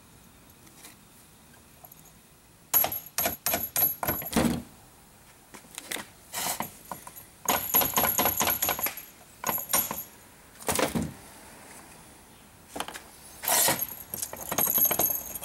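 Short runs of sharp metal taps, some ringing, from a small hammer driving a steel roll pin into a short-throw shifter; the taps come in several bursts with pauses between.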